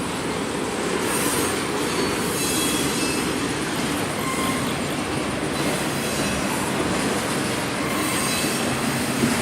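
Intermodal freight train's container cars rolling past: a steady rumble of steel wheels on rail, with faint high wheel squeals now and then.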